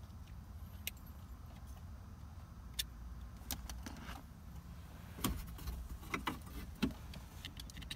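Scattered clicks and light plastic knocks of a car-stereo wiring harness and its connectors being handled and test-fitted, over a low steady hum.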